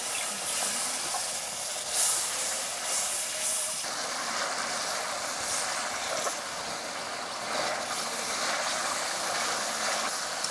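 Curry masala with a bowl of water just added, boiling and sizzling with a steady hiss in a kadai while it is stirred with a metal spatula.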